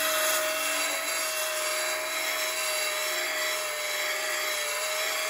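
Narrow-belt file sander running at a steady speed, its orange abrasive belt grinding down a welded patch on the steel rear rail: a steady whine over the hiss of the belt on the metal.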